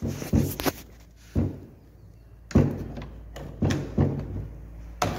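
Knocks and thuds from the removable pieces of a tank-sluice scale model as it is opened up and its parts are lifted and handled. There are about eight separate knocks, the loudest about two and a half seconds in.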